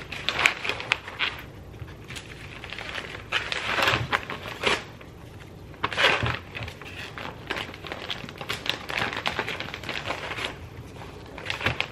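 Plastic vacuum-sealer bags crinkling and rustling in irregular bursts as ears of corn are slid into them, with a few sharp clicks from handling.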